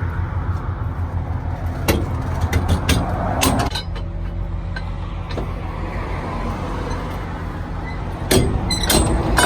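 A diesel truck engine idling steadily, with sharp metallic clanks of tie-down chains and binders being handled, the loudest clanks near the end.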